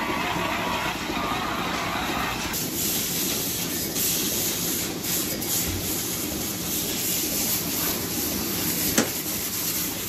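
Steady running noise of milking-parlour machinery. About two and a half seconds in, it gives way to the hiss of a water hose spray gun jetting water onto the parlour floor and equipment. A single sharp click comes near the end.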